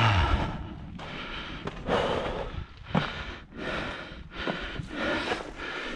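A hiker breathing hard with exertion, a noisy breath about every second, starting with a low grunt.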